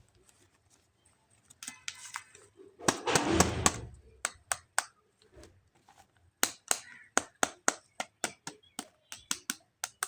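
Hands handling plastic toys and packaging: a short crinkle, a loud rustle about three seconds in, then a run of sharp plastic clicks, two or three a second.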